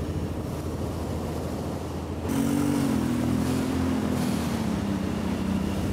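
Steady low rumble, then about two seconds in a louder motor vehicle engine drone whose pitch slowly falls.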